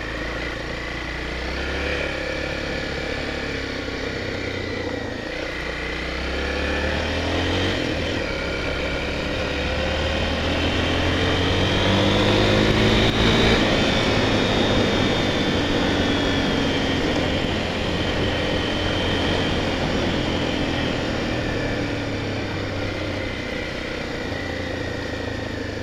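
Honda XR 250 Tornado's single-cylinder four-stroke engine running under way. Its revs climb to a peak about halfway through, then ease off again.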